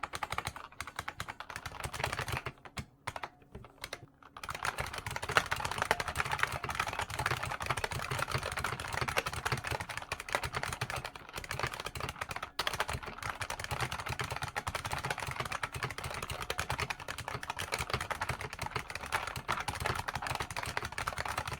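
An IBM Model M's buckling-spring keys are typed on in fast, continuous clicking, with a brief pause about three seconds in.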